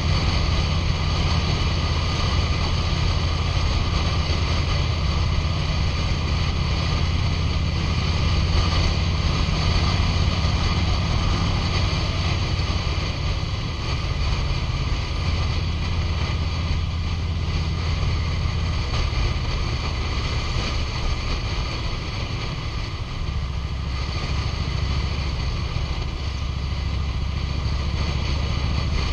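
2005 Harley-Davidson Road King's air-cooled Twin Cam 88 V-twin running steadily under way, with rushing wind on the microphone. The engine note settles a little lower about three-quarters of the way through.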